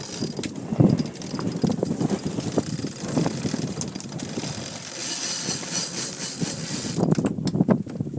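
Wind and water noise aboard a sailing yacht under way in a strong gust, with irregular knocks and rattles from the boat; a high hiss drops away about seven seconds in.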